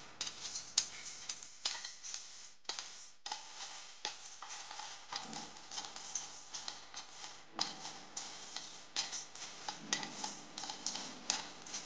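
A flat wooden spatula stirring and scraping dry-roasted whole spices (cloves, cardamom pods, star anise, cinnamon) around a stainless steel pan, the spices clicking and rattling against the metal in quick, irregular taps.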